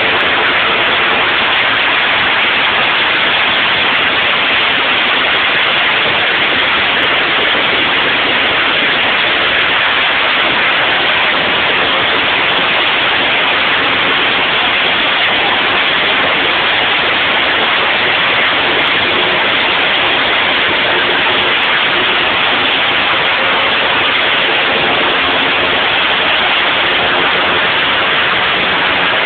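Pratt & Whitney PT6 turboprop at run-up power, a loud steady roar with no change in level. The propeller blast buffets the microphone.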